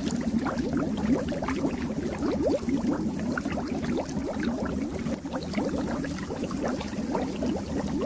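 Fish tank water bubbling steadily: a dense, continuous run of small air bubbles, each a short rising blip, with no pause.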